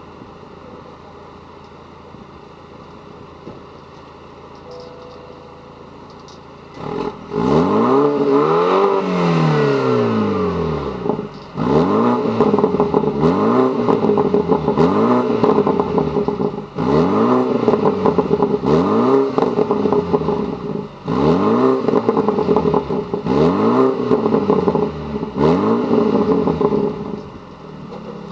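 BMW 428i's 2.0-litre turbocharged four-cylinder engine, heard through a stock muffler with added dual tips, idling for about seven seconds. Then it is revved once, up and back down, followed by a string of about eight quick throttle blips, each rising and falling in pitch. Crackles and pops from the exhaust come as the revs drop.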